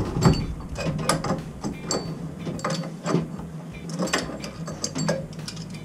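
A wrench turning a threaded brass fitting on a boiler's relief-valve outlet: a run of sharp, irregular metal clicks and ratcheting, a few a second, over a low steady hum.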